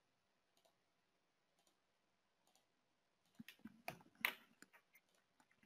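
Near silence broken by a handful of faint computer mouse clicks, most of them bunched together past the middle.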